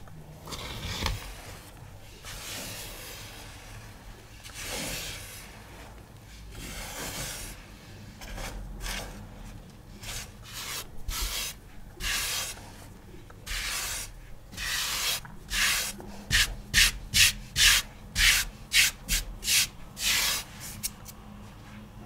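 Dry iron oxide pigment powder scraped and rubbed in repeated gritty strokes. The strokes are slow and spaced at first, then come quicker and louder, about two a second, in the last several seconds.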